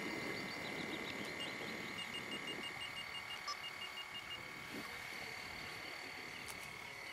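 Radio-controlled model tugboat's small drive motor giving a faint, steady high whine as the boat runs.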